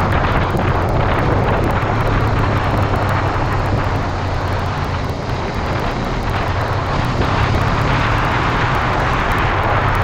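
A 2014 Honda CBR500R's 471 cc parallel-twin engine running at steady road speed, mixed with a heavy rush of wind past the camera.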